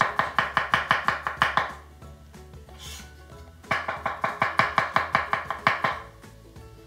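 Chef's knife slicing garlic cloves on a plastic cutting board: rapid even taps of the blade on the board, about six or seven a second. The taps come in two runs of about two seconds each, with a short pause between them.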